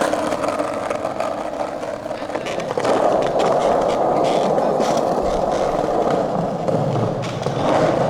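Skateboard wheels rolling over paved street in a steady rumble, with a few light clicks. It grows louder about three seconds in.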